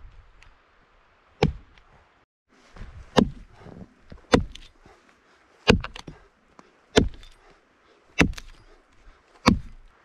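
Axe chopping into a dead, dry fallen log: about seven sharp strikes, one every second and a quarter or so.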